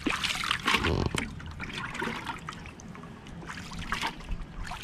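Water trickling and splashing in small, irregular spurts, with a louder patch about a second in.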